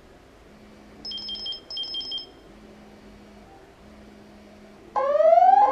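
Ringtones played through an iPhone 5's speaker. About a second in come two short bursts of rapid, high electronic beeps. Near the end a loud siren tone starts, rising in pitch over and over.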